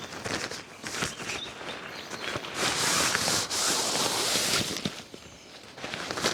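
Footsteps and rustling, crunching handling noises outdoors, with a louder rustling hiss about two and a half seconds in that lasts about two seconds.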